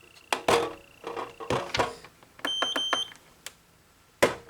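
A UV/LED nail curing lamp beeping: two short, high electronic beeps in quick succession about two and a half seconds in. Around them, sharp clicks and knocks of nail polish bottles and tools being handled on the table, the loudest knock near the end.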